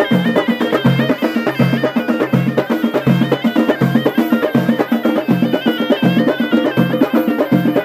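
Moroccan ghaita (reed shawm) playing a melody that moves up and down in quick steps over a steady beat of a double-headed tbel drum and hand-held frame drums, about three strikes a second.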